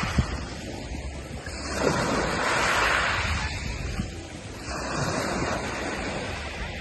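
Sea waves breaking and washing in, two surges of rushing water about three seconds apart, over wind buffeting the microphone.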